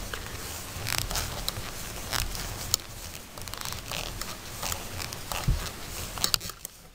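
Knitting needles working acrylic yarn close to the microphone: scattered clicks and scrapes of the needles, with the yarn squeaking and rubbing as stitches are made.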